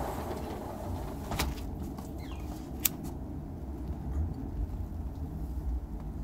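Low steady outdoor rumble, with two sharp clicks and a faint short falling chirp.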